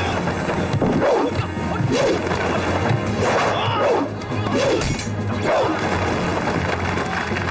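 Action-scene background music under a staged kung fu fight, with punch and impact sound effects of blows landing.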